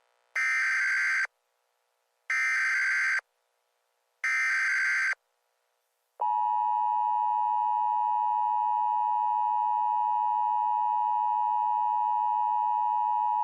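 Emergency Alert System SAME header: three short bursts of buzzy digital data tones, about two seconds apart. About six seconds in, the long, steady two-tone EAS attention signal (853 and 960 Hz) begins.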